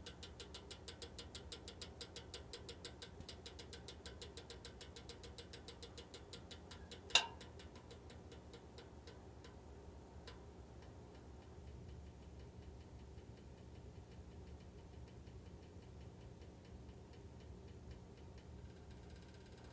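Kaiyi electric heater making an abnormal noise: a rapid, even ticking that fades away over several seconds, over a steady low hum. There is one sharp click about seven seconds in and a fainter one about three seconds later.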